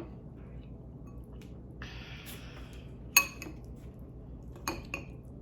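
A utensil clinking a few times against a dish while sticky cooked ramen noodles are stirred, with a short scrape about two seconds in and the sharpest clink a little after three seconds.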